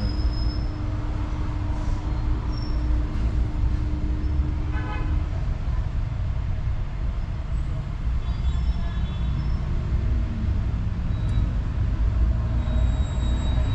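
Steady low rumble of vehicle and workshop noise, with a steady hum that stops about five seconds in, just as a short horn toot sounds.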